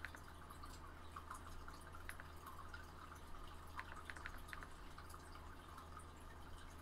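Faint trickling and dripping water from a fish tank, with a few small plinks about two and four seconds in and a steady low hum underneath.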